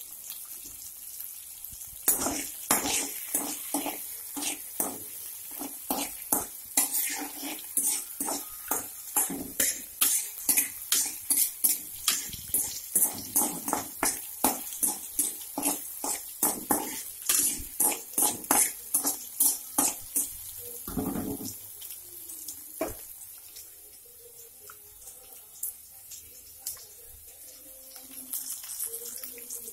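A spatula scrapes and knocks against a metal kadai while chopped tomatoes are stirred in hot oil, two or three strokes a second, over a steady sizzle of frying. The stirring stops about two-thirds of the way through, leaving the sizzle.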